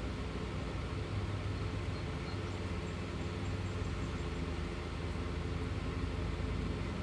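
A steady, unchanging low mechanical hum with several pitched tones, like a motor or engine running.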